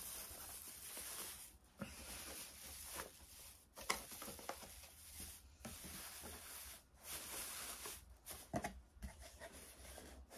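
Hands rustling and handling cardboard and product packaging, with a few sharp clicks.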